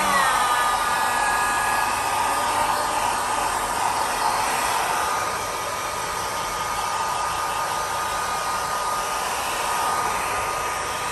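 Hand-held hair dryer blowing steadily: a constant rush of air with a steady high whine from its motor.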